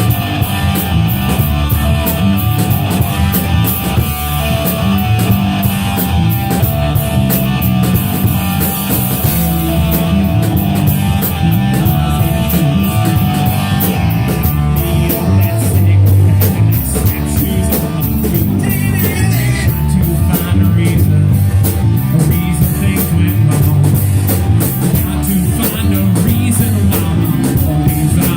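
Live rock band playing loudly: a drum kit, guitar and singing.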